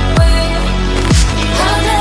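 Electronic background music with no vocals: held synth chords over deep bass hits that drop in pitch, about one a second.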